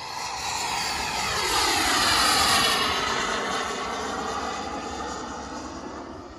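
Turbine engine of a Ziroli F9F Panther scale RC jet flying past: a rushing jet whine that swells to its loudest about two and a half seconds in, then drops in pitch and fades as the model goes by.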